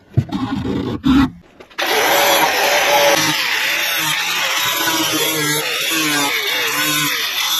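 A few knocks and clatters, then a corded angle grinder starts suddenly about two seconds in and runs steadily, grinding paint and debris off a crack in an aluminum boat transom. Its pitch dips and recovers as the disc is pressed into the metal.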